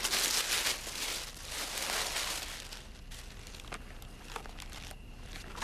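Tissue paper crinkling and rustling as a wrapped gift is opened by hand. It is loudest over the first two and a half seconds, then dies down to a few soft clicks and rustles.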